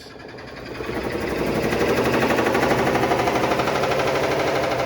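Black+Decker BPW30MW portable washing machine in its spin cycle, knocking loudly in a fast, even rattle that builds over the first second or so and then holds steady. The owner eventually traces the fault to the clutch assembly and belt.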